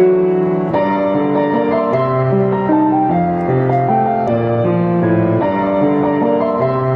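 Background keyboard music: a slow melody of held notes over a lower bass line.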